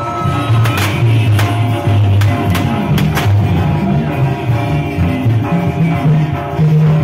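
Latin American band music playing loudly, with about half a dozen sharp pops from fireworks on the smoking fireworks tower in the first three and a half seconds.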